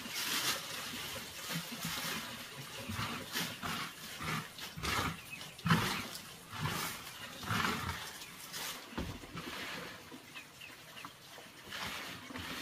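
Ducks calling and moving about, with some splashing, in short irregular bursts.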